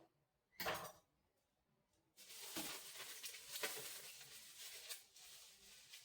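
Food and bags being handled at a refrigerator: a single knock a little over half a second in, then steady rustling with a few sharp clicks from about two seconds in.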